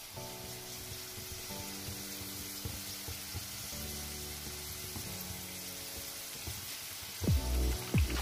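Golgappa puris deep-frying in hot oil, a steady sizzle, under background music that gets louder near the end.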